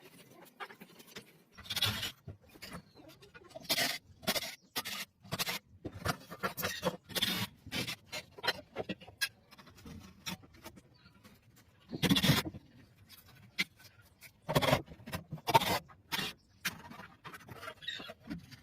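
Irregular scraping and knocking from hands-on work, short strokes at uneven intervals with a few louder ones, among them about twelve and fifteen seconds in.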